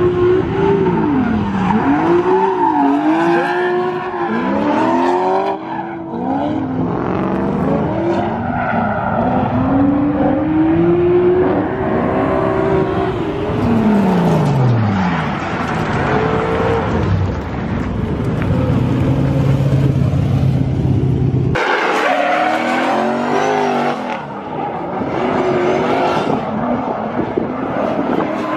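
Drift cars' engines revved hard, the pitch sweeping up and down again and again, over tire squeal and skidding as the cars slide. The sound changes abruptly about two-thirds of the way through.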